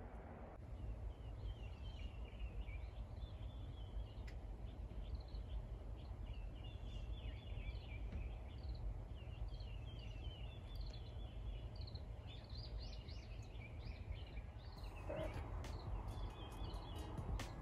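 Many small birds chirping and twittering in a morning chorus over a steady low background rumble. About 15 seconds in the sound grows louder and fuller, with a run of sharp clicks near the end.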